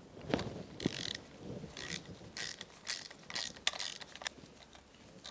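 Hand socket ratchet clicking in short runs on its back-swings as an outboard spark plug is unscrewed, with a couple of dull knocks near the start.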